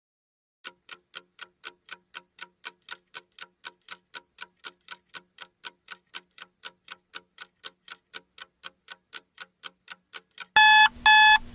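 Countdown-timer sound effect: a clock ticking quickly and evenly, about four ticks a second, then a loud electronic alarm beeping in short pulses near the end as the timer runs out.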